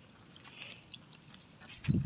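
Cattle grazing: faint crackling of grass being torn and chewed, with a louder low thump near the end.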